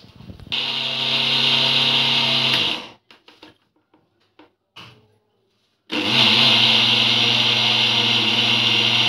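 Electric mixer grinder with a steel jar pulse-grinding a crumbly gram-flour mixture: the motor runs for about two and a half seconds, winds down and stops, then starts again about three seconds later and runs on. Grinding in short bursts keeps the flour grainy instead of turning it smooth.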